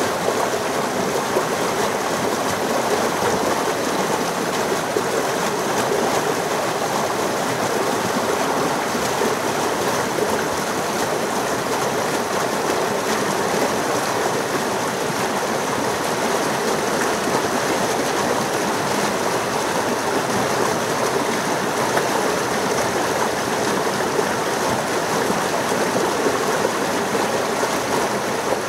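Small stream pouring and splashing between large boulders in a little cascade, a steady rushing of water that does not let up.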